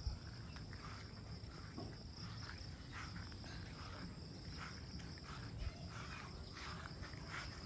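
A steady, high-pitched insect chorus chirring without a break.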